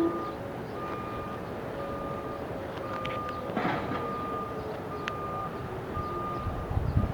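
Whelen 3000 outdoor warning siren heard faintly at the tail of its wail, the tone sliding slowly lower. A steady beep repeats about once a second over it, with a short burst of noise about three and a half seconds in.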